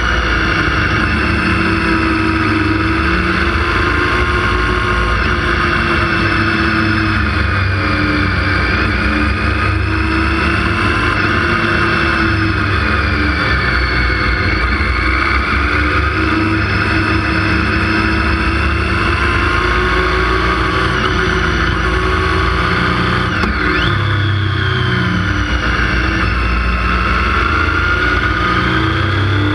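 Motorcycle engine running steadily while riding, heard from a camera mounted on the bike, with wind and road noise. The engine pitch rises and falls gently through the bends, with one quick dip and recovery late on.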